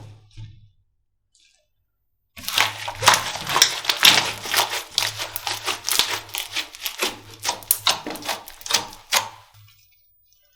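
Slime being squeezed and pressed by hand close to the microphone, giving a rapid run of sharp crackles and pops that starts about two seconds in and lasts roughly seven seconds.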